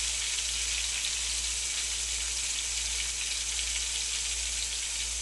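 Battered white oyster mushroom tempura frying in hot oil in a frying pan: a steady sizzle with fine crackles throughout.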